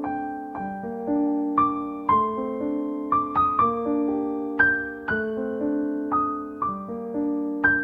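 Background piano music: a gentle melody of struck notes that ring and fade over held low notes.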